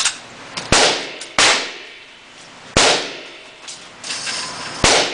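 Gunshots at a shooting range: four sharp reports at uneven spacing, each with a ringing, echoing tail.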